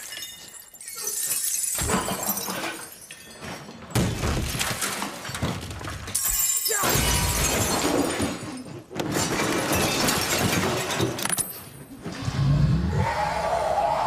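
Glass shattering and breaking in a series of loud crashes, the first coming suddenly about four seconds in.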